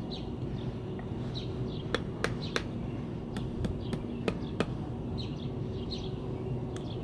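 A hammer tapping down the corners of the metal locking bracket on a CV axle joint housing, about six sharp taps in twos and threes. Small birds chirp in the background.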